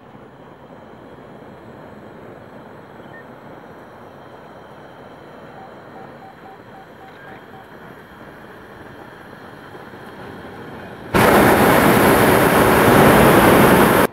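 Hot air balloon's propane burner firing: after a stretch of faint, even air noise, a loud, steady blast starts suddenly about eleven seconds in, holds for about three seconds, and stops abruptly.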